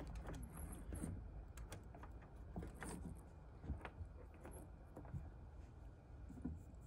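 Faint, scattered small clicks and rustles of hands handling the sailing kayak's rigging lines and fittings, over a low rumble.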